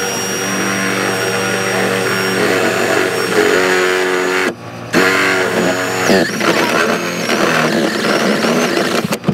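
Cordless drill running a step bit (unibit) through the sheet-metal wall of a junction box, its motor whine shifting in pitch as the bit bites. The trigger is let off briefly about halfway through, then drilling resumes. A steady low hum runs underneath.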